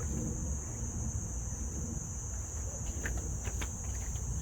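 Insects chirring in one steady high-pitched drone over a low background rumble, with a few faint clicks about three seconds in.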